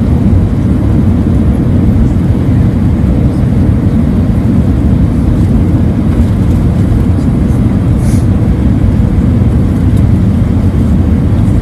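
Airbus A320 cabin noise on approach, heard from a window seat over the wing: a steady, loud, low rumble of jet engine and airflow noise.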